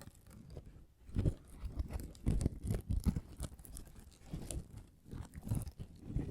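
Fingertips tapping and scratching in an irregular run of soft strokes and scrapes, with faint sharp ticks among them.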